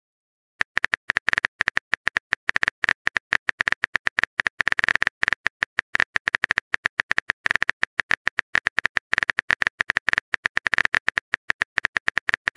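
Keyboard typing sound effect of a texting app: a quick, uneven run of short clicks, many a second, one per keystroke as a message is typed out. It starts about half a second in.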